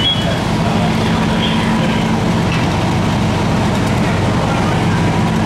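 Steady drone of a fire engine's diesel engine running on scene, a low hum made of several steady tones that holds unchanged.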